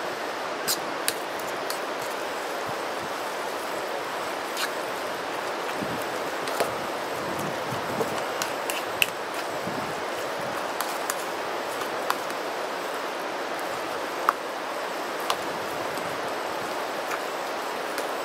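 Metal spoon clinking and scraping against a metal canteen cup while stuffing is stirred: irregular sharp clinks, about fifteen in all, over a steady rushing background noise.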